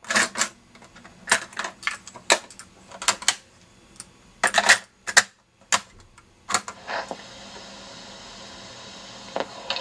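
Clunky mechanical clicks of 1970s Panasonic portable cassette recorders being handled: a piano-key control snapping down, the cassette door opening, a cassette clattering in and the door clacking shut, about ten separate clicks and knocks. A steady faint hiss takes over about seven seconds in.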